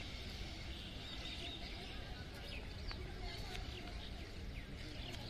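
Birds chirping in short, quick calls over steady low background noise, with faint distant voices.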